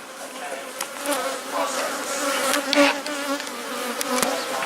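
Honeybees buzzing in a swarm around their disturbed barrel hive: a steady hum, with single bees passing close and wavering in pitch, and a few faint clicks.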